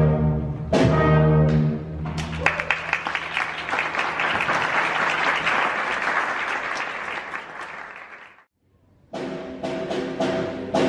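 A children's concert band ends a passage on a held brass chord with drum strikes, then the audience applauds for about six seconds. After a short silent gap, the band plays again: brass chords with drum strikes.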